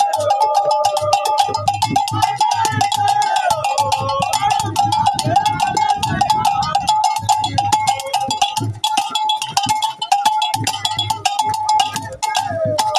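Metal bell ringing with rapid, steady strikes, over a crowd singing as it walks.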